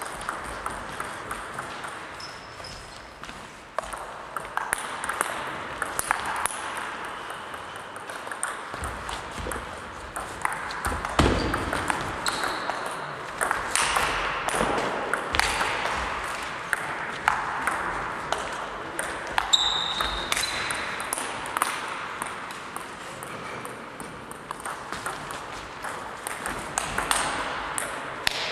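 Many sharp clicks and taps at irregular intervals over steady background noise, with a couple of brief high tones.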